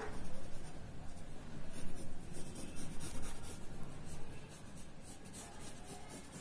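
A drawing tool scratching on paper in a series of quick short strokes, the lines of a lion's whiskers, most of them about two to three and a half seconds in.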